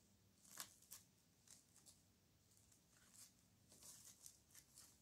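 Near silence with faint, scattered scratchy rustles and ticks, a few more near the end: fingers and a small wooden stick working potting soil around a ZZ plant leaf cutting in a plastic seed tray.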